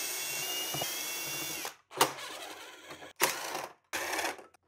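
Cordless drill/driver spinning a nut off a steel hold-down bar on a battery's cell pack: a steady whining run of about two seconds that stops, followed by three shorter, sharper sounds.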